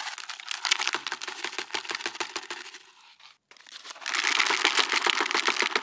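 Dried luffa gourd being broken apart and shaken by hand: its brittle skin and fibers crackle and tear, and loose seeds drop into a plastic bucket. The crackling comes in two spells with a short pause about three seconds in.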